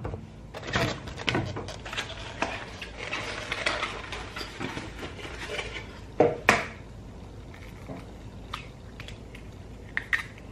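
Bowls, utensils and ingredients being handled on a kitchen counter: scattered clicks, light knocks and rustling, with two sharper knocks a little after halfway.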